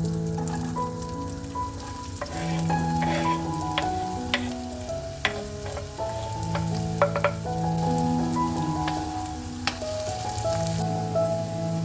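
Food frying and sizzling in a pan, with sharp clinks of a utensil being stirred against the pan, the loudest a few seconds past the middle. Gentle background music plays a melody alongside it.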